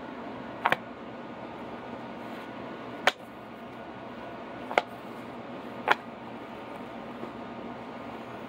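Metal hand tools clicking and clacking against a magnetic tool mat as they are set on it and pulled off: four short, sharp clicks spread over several seconds, the first one doubled, over a steady background hiss.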